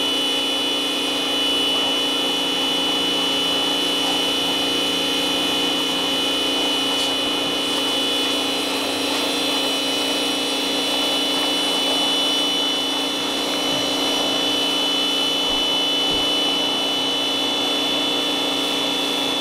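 Snap-On 1650 PSI electric pressure washer running steadily, its motor and pump giving a constant high whine over the hiss of the water jet spraying onto wooden fence boards.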